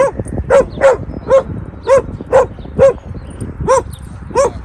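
A dog barking repeatedly while two dogs play-chase, about nine short, sharp barks at roughly two a second, with a brief pause a little past the middle.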